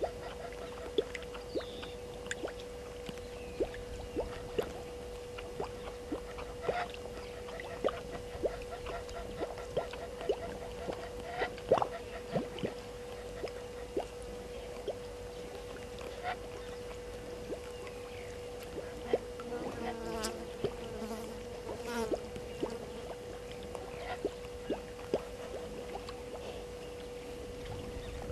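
Outdoor bush ambience: a steady hum under scattered soft clicks, with a short run of rapid pulsed calls about 20 seconds in.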